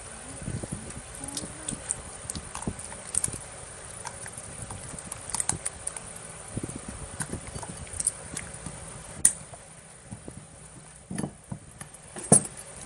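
Jiggly slime being worked by hand: irregular sticky clicks and small wet crackles, with a few louder pops, one sharp one about two-thirds of the way through and another near the end.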